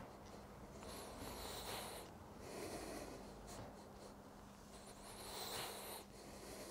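A man breathing with exertion while doing chair dips: three faint breaths, each about a second long.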